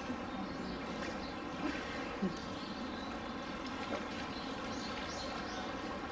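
Steady outdoor background noise with faint, brief bird chirps scattered through it and no clear foreground sound.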